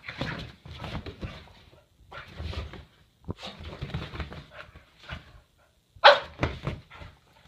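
Boston terrier barking in short bursts while playing, the loudest bark about six seconds in.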